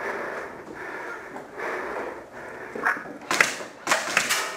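A person breathing in and out under cover, in soft repeated breaths, with three or four sharp cracks in the last second and a half.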